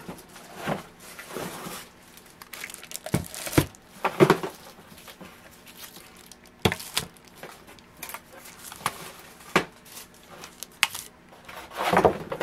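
Clear plastic wrapping crinkling and rustling as wrapped items are handled and laid down, with several short knocks as they are set on the table.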